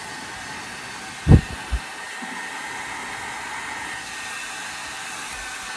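Handheld hot-air blower running steadily with an even hiss and a faint whine, blowing cold air rather than hot. Two dull thumps sound about a second in.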